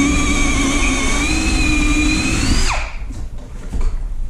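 Electric drill running for nearly three seconds with a steady whine that rises slightly, then stops and winds down.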